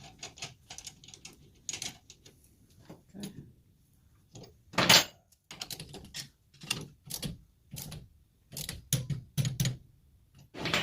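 Irregular metallic clicks and clinks of hand tools and nuts being worked on a wheel stud at the hub, with one louder clank about five seconds in.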